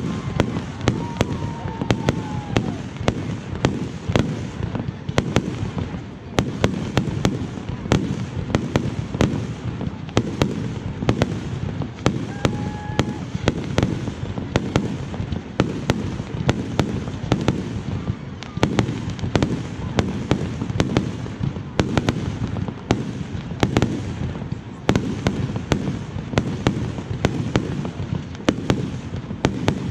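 Fireworks display going off in a dense, continuous barrage: sharp bangs and crackles several times a second over a steady low rumble of shell bursts.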